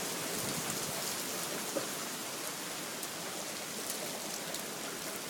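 Hail falling steadily, a dense hiss of hailstones striking the ground with many small sharp ticks scattered through it.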